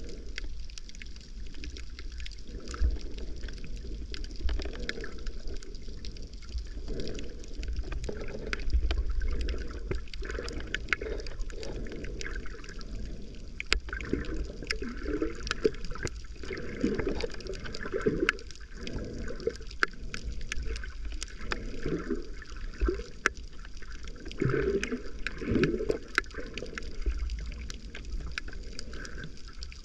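Muffled water sloshing and gurgling around a camera held underwater while snorkeling, with a low rumble and scattered sharp clicks throughout, and a run of short falling gurgles in the second half.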